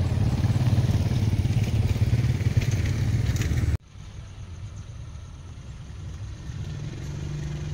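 A loud low rumble that stops abruptly a little under four seconds in. After it, the distant engine of a CC 204 diesel-electric locomotive hauling a coal train hums low and grows slowly louder as it approaches.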